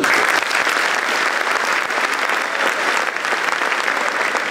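Audience applauding: a steady, dense sound of many hands clapping.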